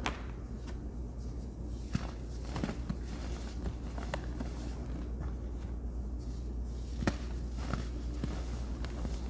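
Hands squeezing and crumbling soft, chalky powder blocks, a steady soft crunching broken by a few sharper crackles, the clearest right at the start and about two and seven seconds in.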